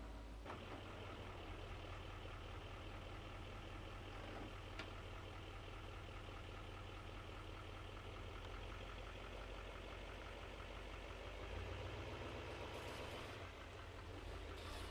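Chevrolet 2500HD's 6.6-litre Duramax diesel V8 running at low speed while pulling a fifth-wheel camper through a slow, tight turn, heard from a distance. It grows slightly louder about twelve seconds in.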